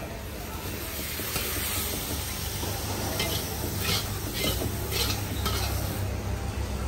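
Metal ladle scraping and clinking against a hot steel wok as a stir-fried dish is tipped out onto a plate, over a steady sizzle. A few short scrapes come between about three and five seconds in.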